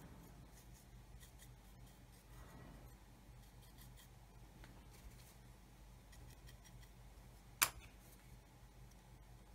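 Faint scratchy strokes of a small paintbrush working wash over plastic model parts, over a low steady hum. One sharp click near the end as the brush is set down on the cutting mat.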